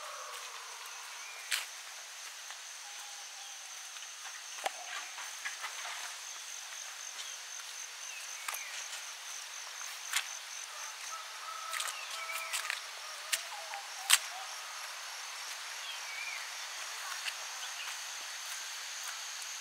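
Crickets chirping in a steady, high, pulsing trill, with short bird chirps here and there and a few sharp clicks, the loudest one about two-thirds of the way through.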